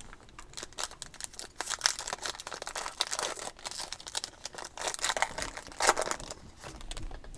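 Wrapper of a trading-card pack crinkling and tearing as the pack is opened, a dense run of irregular crackles.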